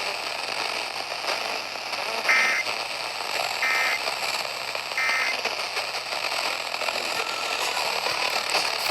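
Emergency Alert System end-of-message data bursts sent over a weak FM radio signal: three short, identical two-tone digital warbles a little over a second apart, about two seconds in, marking the end of the alert. Heavy FM hiss and crackle from the distant, tropo-ducted station runs underneath.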